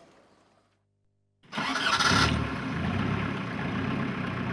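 A motorboat engine starts abruptly about a second and a half in, after a moment of silence, and keeps running steadily with a low drone.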